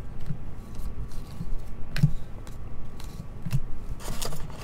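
Trading cards being handled in the hand: cards sliding and flicking against each other, with a few soft knocks. Near the end comes a crinkle of pack wrapping.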